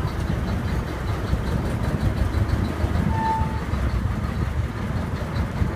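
Tour boat's engine running steadily under way, a continuous low drone heard from inside the covered passenger deck.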